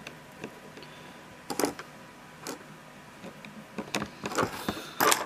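A screwdriver turning the small screws of an airsoft M4's motor grip plate: scattered short clicks and scrapes of metal on metal, several close together near the end.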